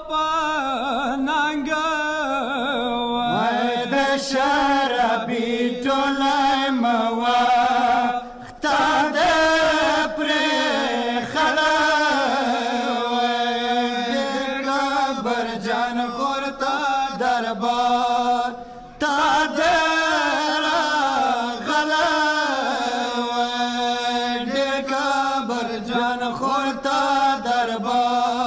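A group of men chanting a Pashto noha, a Muharram lament, in unison with no instruments; the chant breaks off briefly twice.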